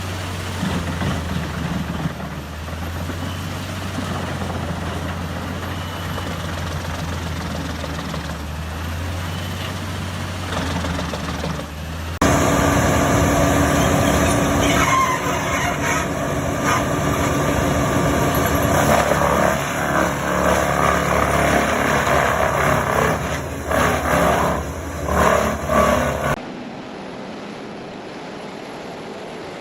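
Engine of a heavy forestry wood chipper running steadily. About twelve seconds in it gives way to a much louder, uneven grinding as logs are fed in and shredded into chips. Near the end this drops abruptly to a quieter steady machine hum.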